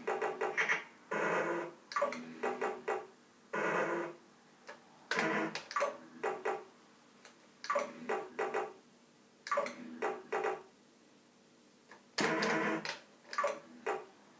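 Fruit machine sound effects: short bursts of electronic bleeps and jingles with sharp starts, repeating about every one to two seconds with quiet gaps between, as the reels spin and stop.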